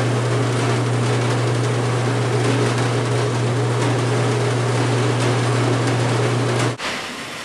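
Standing seam pan former (roll former) running, its motor and rollers drawing sheet metal off the coil with a steady low hum; the sound cuts off suddenly near the end.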